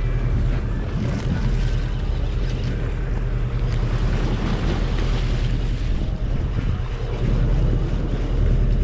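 A fishing boat's engine running with a steady low hum, under wind buffeting the microphone and waves washing along the hull.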